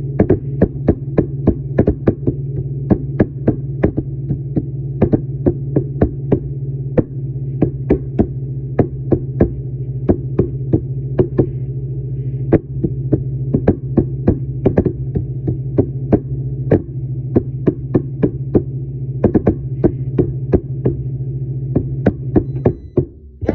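Microwave oven running with a steady low hum and frequent irregular sharp pops, then cutting off abruptly near the end as the heating cycle finishes.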